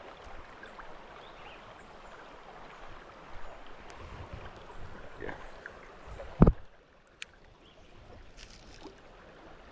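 Creek water running steadily beneath small rustles and clicks of handling, with one loud sharp thump about six and a half seconds in, after which the background drops quieter.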